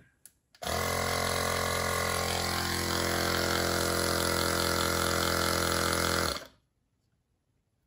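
KeepUp cordless portable tire inflator's compressor running steadily from about half a second in, then shutting off by itself after nearly six seconds: the automatic cut-off as the tire reaches the preset 8 psi.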